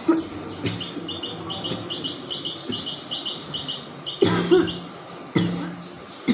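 A woman coughing and hawking her throat in several short, forceful bursts, the loudest pair about four seconds in. Through the first half a small bird chirps in the background in quick, even notes, about three or four a second.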